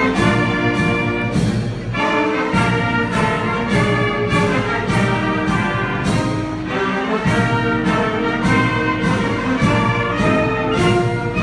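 Orchestral march music led by brass, with a steady beat about two a second.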